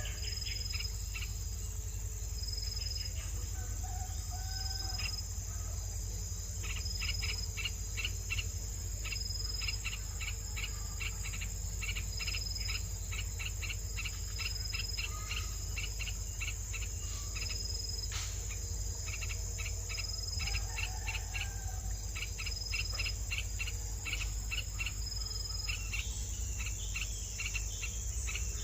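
Outdoor insect chorus chirping steadily in rapid, regular pulses, with a few faint, brief bird calls now and then.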